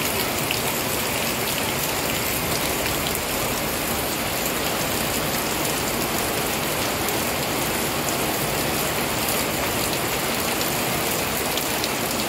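Heavy rain falling steadily on concrete pavement: a dense, even hiss with occasional faint drip ticks.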